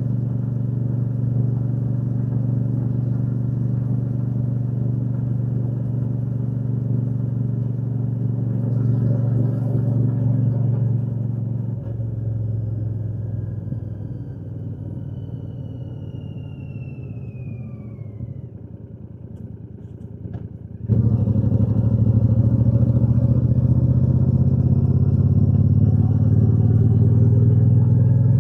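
Royal Enfield Shotgun 650's parallel-twin engine and exhaust running steadily while riding. About 12 seconds in the revs drop off with a falling whine as the throttle eases. About 21 seconds in the engine sound comes back suddenly at full level.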